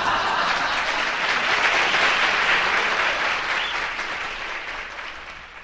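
Audience applauding, starting abruptly and gradually fading out over the last two seconds.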